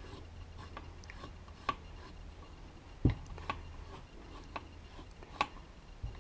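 Scattered light clicks and knocks of Solex 3800 moped parts and tools being handled during assembly, about half a dozen in all. The loudest is a dull knock about three seconds in, over a faint low hum.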